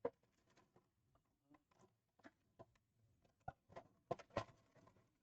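Plastic LEGO pieces clicking and rattling as they are handled and pressed together: quiet scattered sharp clicks, a few louder ones in the second half.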